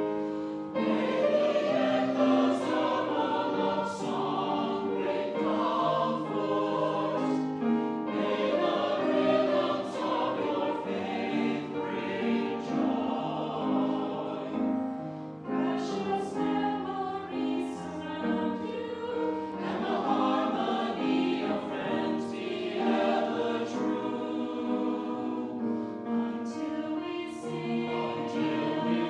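A choir singing a sacred piece, with long held notes that move from chord to chord.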